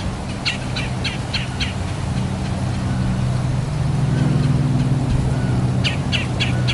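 A vehicle engine running steadily, with a small bird chirping in quick runs of four or five notes, once near the start and again near the end.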